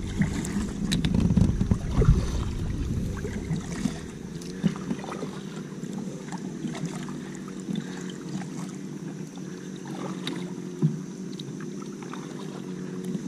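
Water splashing and lapping against the hull of a plastic sit-on-top fishing kayak as it is paddled, with small scattered splashes and knocks. Wind rumbles on the microphone for the first few seconds, then eases.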